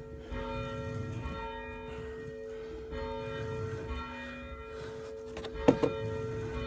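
A single church bell, swung by its rope, tolling: each strike rings on in a steady hum, with fresh strikes about every three seconds. Two sharp knocks sound close together about five and a half seconds in.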